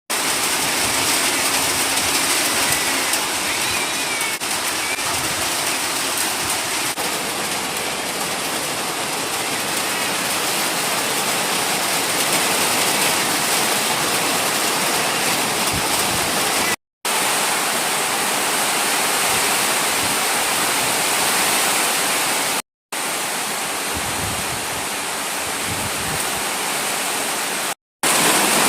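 Steady, even rush of water, like heavy rain or fast-running water. The sound cuts out for a split second three times, at joins between shots.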